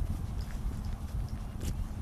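Low, uneven rumble of wind buffeting the microphone, with a few faint clicks.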